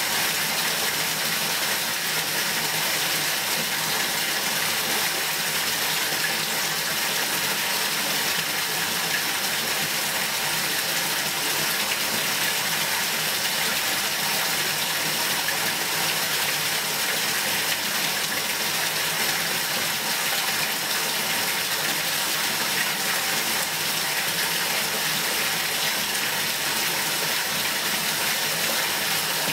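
Water in a bathtub rushing in a steady, unbroken stream.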